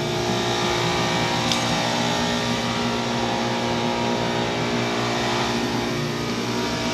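A motor running steadily at one unchanging pitch, a continuous mechanical drone.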